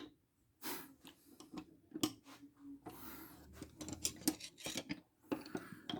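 Screwdrivers and nut drivers clinking and knocking against each other and the toolbox drawer as they are handled, in a string of irregular sharp clicks with a brief rustle about halfway through.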